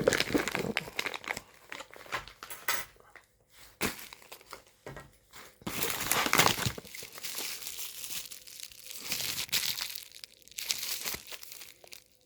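Product packaging crinkling and rustling as it is handled and opened, in irregular spells with quieter gaps, loudest about six seconds in.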